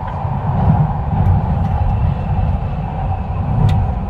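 Driverless light-metro subway train of Incheon Subway Line 2 running through a tunnel, heard from inside the car: a loud, steady rumble of wheels on track with a steady motor hum above it and a couple of faint clicks.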